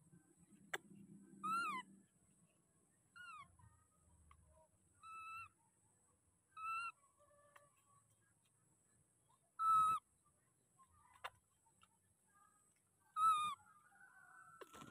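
Baby macaque squeaking: six short, high-pitched calls, each falling in pitch, spaced one to three seconds apart, the loudest near the middle and near the end.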